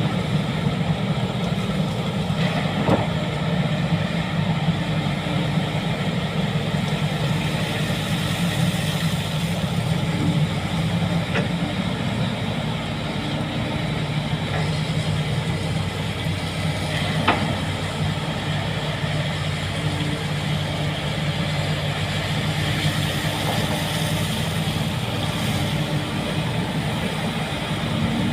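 Heavy earthmoving machine's diesel engine running steadily, with two sharp knocks, one a few seconds in and one past the middle.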